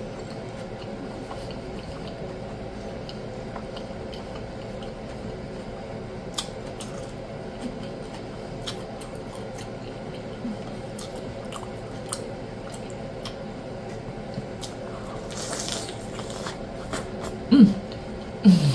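Close-up eating sounds of a birria taco being chewed: wet squishing with scattered smacking clicks over a faint steady hum, and a couple of louder bites near the end.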